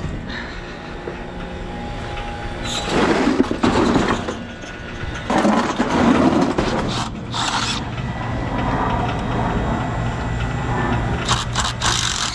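Milwaukee M12 cordless driver run in four short bursts, backing out screws on an old air-conditioner condensing unit and its metal disconnect box.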